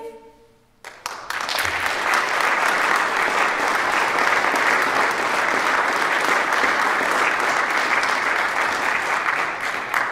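Audience applauding: a few first claps about a second in, then dense, even clapping that holds until near the end.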